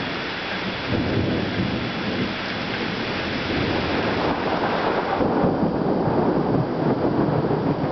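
Rain falling steadily on tree foliage, with a low rumble of thunder that comes in about a second in and grows louder.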